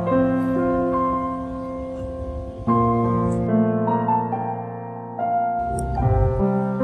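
Background piano music: held notes and chords that change every few seconds.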